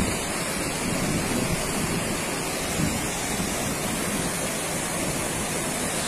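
Muddy floodwater rushing down a town street and pouring over an embankment: a steady noise of running water.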